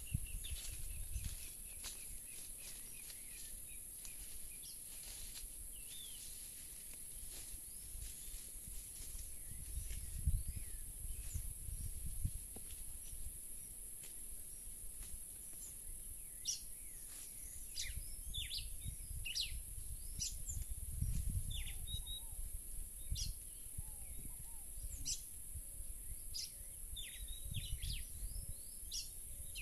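Outdoor rural ambience: scattered short bird chirps, thickening in the second half, over a steady high-pitched hiss and intermittent low rumbling noise.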